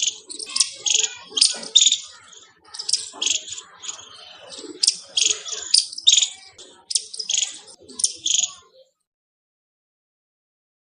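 Squirrel chirping: sharp, high-pitched calls in quick clusters of two or three a second, stopping abruptly near the end.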